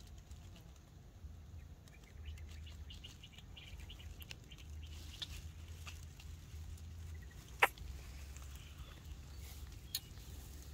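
Low outdoor rumble with faint, short high squeaks a few seconds in, and a single sharp click about two-thirds of the way through.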